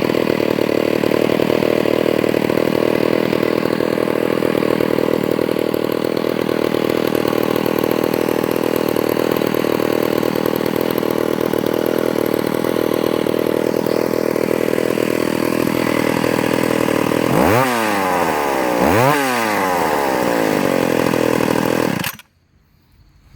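McCulloch Super Pro 80 two-stroke chainsaw running steadily at idle, then revved up and back down twice, and switched off suddenly near the end. The saw's clutch spring is broken, which the owner takes to mean the clutch needs attention.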